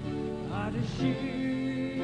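Slow worship music: sustained accompaniment chords with a singing voice.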